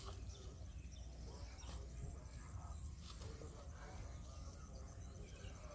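Quiet open-field ambience: a steady low rumble of wind on the microphone, with faint scattered chirps.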